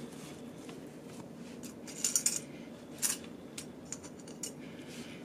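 Light metallic clicks and fabric handling as straight pins are pushed through bias binding along a metal-toothed zipper. There is a quick cluster of clicks about two seconds in, then a few single clicks spaced about half a second apart.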